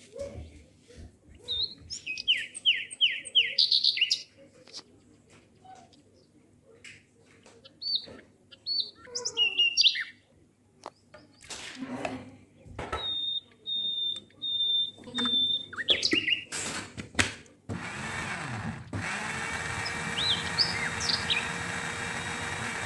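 Small birds chirping and trilling, with a few knocks as ingredients are tipped from a measuring cup into a blender jar. About 18 seconds in, an electric blender starts and runs steadily, blending the mango cubes and sugar into a smooth yellow puree.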